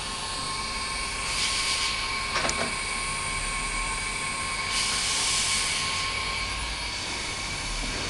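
Steady machine hum with a thin constant whine. Two short rushes of hiss come about a second and a half in and again about five seconds in, with a single click between them.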